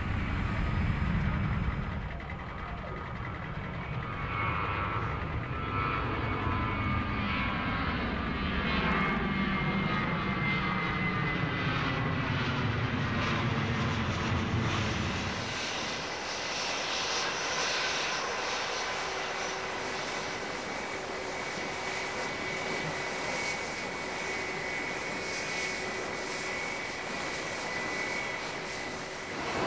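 Jet engines of a Boeing 787-9 running on the ground as the airliner taxis: a steady turbine whine over a low rumble. The rumble drops away about halfway through, leaving a steady, higher whine and hiss.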